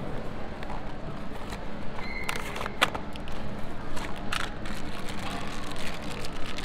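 Cardboard Beyblade box being torn open by hand: several short ripping and crinkling noises over steady background noise.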